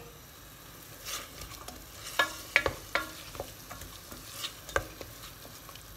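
Onions, garlic and carrots sautéing in olive oil in a large pot with a low sizzle, stirred so that the utensil knocks against the pot several times, each knock ringing briefly.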